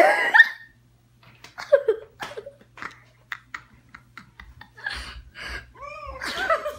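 People laughing and squealing, with a loud outburst at the start and high arching squeals near the end, between short knocks and rustles of scuffling about.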